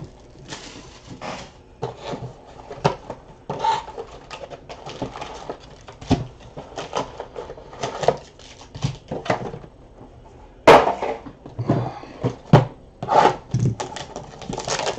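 Cardboard boxes of trading cards being handled, slid and set down on a table: irregular knocks and taps with rustling between, and a few louder knocks in the second half.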